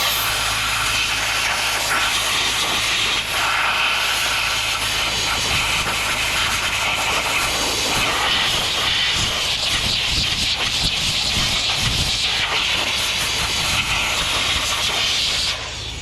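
Aerosol parts cleaner spraying in a long, steady hiss over brake parts, cutting off shortly before the end, with a low hum underneath.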